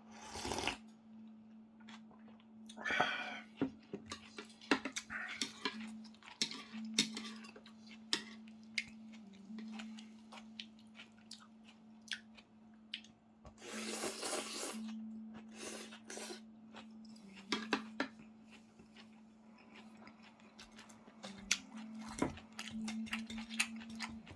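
Eating pho: chewing and slurping of rice noodles, with short clicks of utensils against the bowl over a steady low hum.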